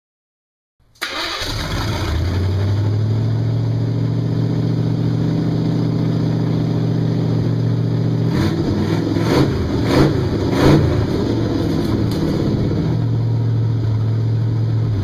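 Hot rod's V8-style car engine running at a steady idle, cutting in abruptly about a second in, with a few short surges in the middle.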